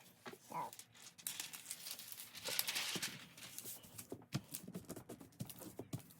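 A diamond painting canvas and its plastic wrapping rustling and crinkling as they are handled and pressed flat, with scattered taps and knocks.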